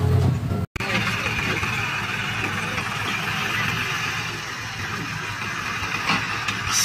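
Sonalika DI 35 tractor's diesel engine idling steadily with its loaded soil trolley hitched, after a sudden break about a second in.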